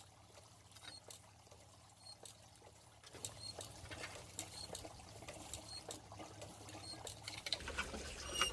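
Faint, scattered light clicks of soot and creosote flakes being knocked loose during cleaning of a wood stove's flue pipe.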